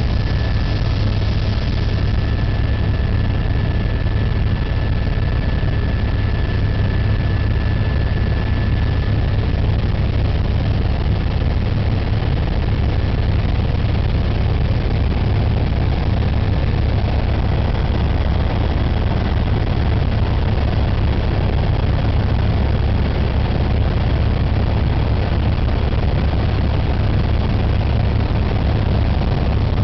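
Helicopter engine and rotor running steadily in flight, heard from inside the cabin: a loud, constant low drone, with a thin high whine that fades out about halfway through.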